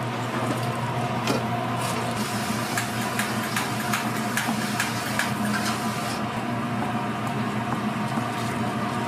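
Knife cutting through sundae (Korean blood sausage) and knocking on the cutting board: a quick series of light knocks, about two or three a second, that stop about six seconds in. A steady machine hum runs underneath.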